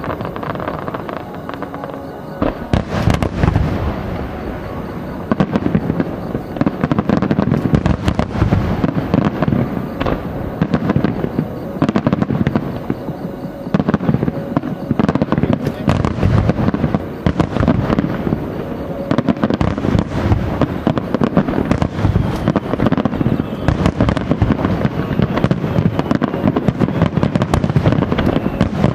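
Fireworks display: a dense, near-continuous barrage of aerial shell bursts, many bangs a second, starting about two and a half seconds in.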